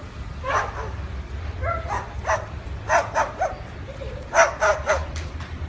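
White cockatoo barking like a dog: short yapping calls, several of them in quick runs of two or three, over a steady low rumble.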